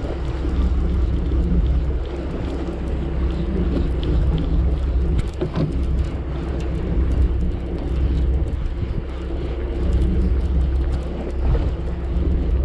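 Boat engine running steadily offshore, a low rumble mixed with wind and water noise, with a few light clicks.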